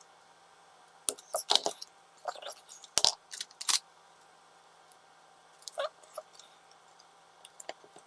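Small metal clicks and short scrapes of a bent steel-wire hook and pliers working inside a mini flashlight's metal button housing, trying to hook and pull out the button. The clicks come in a cluster over a few seconds, then a few more near the end.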